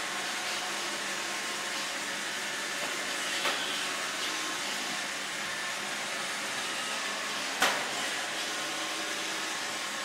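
Roomba 650 robot vacuum running steadily, its motor and brushes making an even whirring hiss. Two short knocks break through it, a light one about a third of the way in and a louder one about three quarters of the way through.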